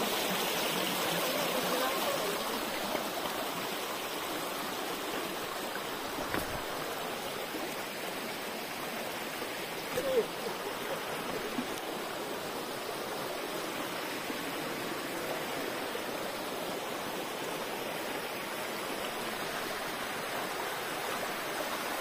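A shallow stream runs over rock ledges in small cascades, with a steady rush and splash of water. It is slightly louder for the first couple of seconds.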